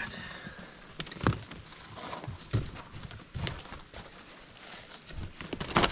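Large cardboard shipping box being opened by hand, its lid and flaps folded back: scraping and rustling of cardboard with a few sharp knocks, the loudest near the end.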